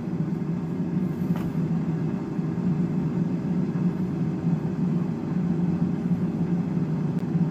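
Instant Vortex air fryer's fan running steadily while the unit preheats: a constant low hum with no change in pitch.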